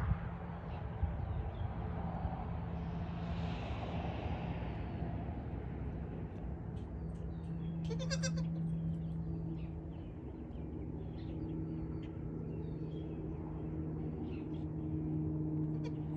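A young goat kid bleats once, briefly, about halfway through, over a steady low hum.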